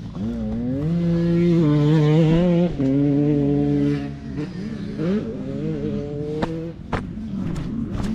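Two-stroke Yamaha YZ125 dirt bike engine revving hard, its pitch climbing and dropping several times as it is ridden through the gears, loudest in the first few seconds, with a few sharp knocks near the end.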